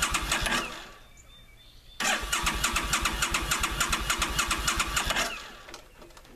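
Suzuki Volusia's 805 cc V-twin being cranked on its electric starter in a cold start after sitting all winter, turning over without catching. There are two bursts of cranking: a short one that stops just under a second in and a longer one of about three seconds that starts about two seconds in.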